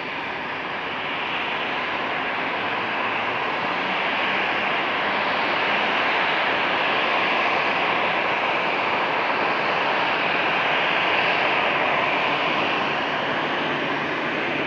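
Jet airliner engines making a dense, steady noise. It builds over the first few seconds, is loudest from about the middle to near the end, then eases slightly.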